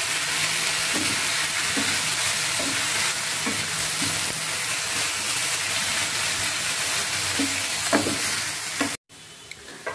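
Gongura (sorrel) leaves sizzling as they are stir-fried without oil in a nonstick pan, stirred with a wooden spatula. The sizzle is steady, then cuts off suddenly near the end.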